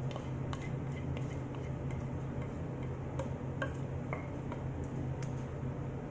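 Wooden spatula scraping creamy filling out of a metal pan into a glass baking dish: faint, scattered clicks and taps over a steady low hum.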